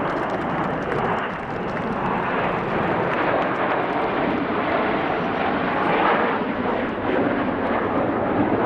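Several BAE Hawk T1 jets flying past in formation: a steady, loud rush of jet-engine noise that cuts off abruptly at the end.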